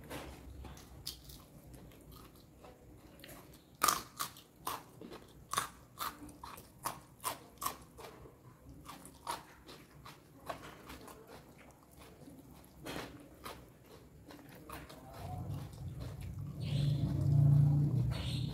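Close-miked crunching bites and chewing of raw vegetables: a run of sharp crunches for several seconds, then softer chewing. Near the end a louder low rumbling sound comes in.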